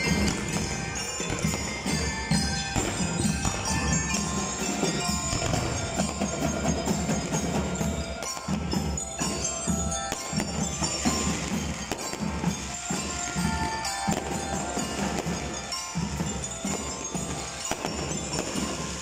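A drum and lyre band playing, with bell lyres ringing out a melody over drums.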